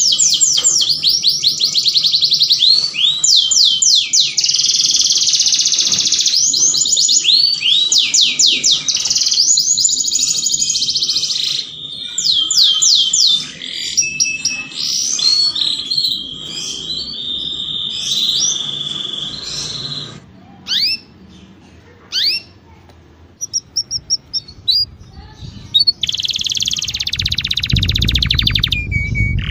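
Canary singing a long, fast song of rapid trills and quick sweeping notes; after about twenty seconds it breaks into scattered short notes with quiet gaps, then runs dense again near the end. It is the song of a canary in breeding condition, the kind played to lure other canaries into mating.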